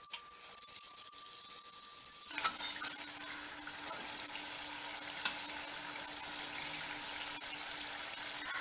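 Pooris deep-frying in hot oil in a stainless steel kadai: a faint sizzle at first, then from a little over two seconds in a loud, steady sizzle of a full batch, opening with a sharp click. A metal spatula clicks against the pan about five seconds in.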